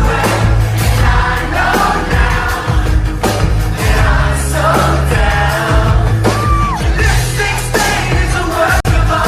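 Pop song with a steady beat, strong bass and a singing voice.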